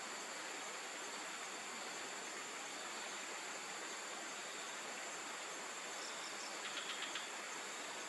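Rainforest insects droning steadily with a constant high whine over an even hiss. A few short high chirps come about six seconds in, followed by a brief rapid run of ticking notes.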